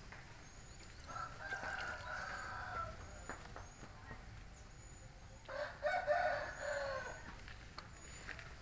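A rooster crowing twice, each crow about two seconds long.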